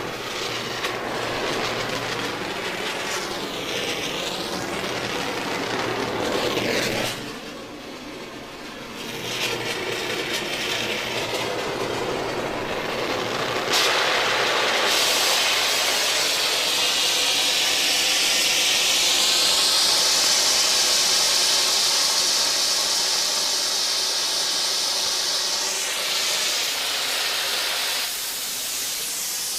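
Welding torch flame hissing steadily. It dips for a couple of seconds about a quarter of the way in, then a sharp click comes about halfway, after which the hiss grows louder and brighter. It eases again near the end.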